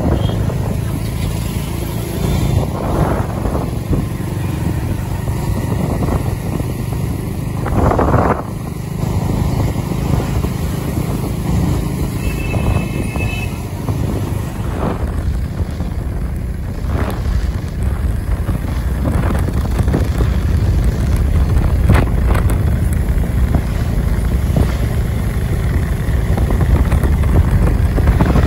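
Motorcycle ride: the bike's engine and a heavy, steady low rumble of wind and road noise, with scattered bumps and gusts. A brief high beep sounds near the middle.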